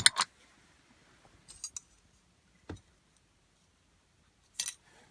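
Small metal parts clinking and tapping as they are handled: a clink at the start, a few light ticks about a second and a half in, a duller knock a little later, and a short rattle near the end.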